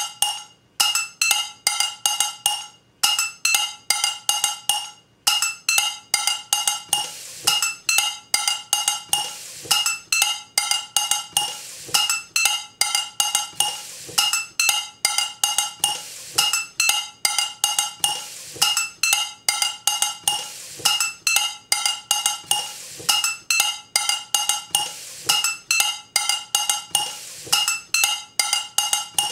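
A rhythmic beat played on kitchenware, mainly a frying pan struck with a chopstick. Each strike gives a metallic ping that rings on a few fixed pitches, several strikes a second, in a pattern that repeats about every two seconds.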